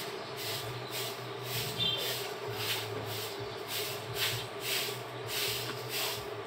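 A steady rhythmic swishing hiss, about two pulses a second, over a faint low hum, with a brief high chirp about two seconds in.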